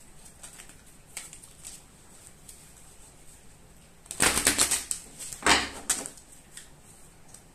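Tarot cards being handled and shuffled on a table: a quick run of small clicks and rustles about four seconds in, then a few sharper taps.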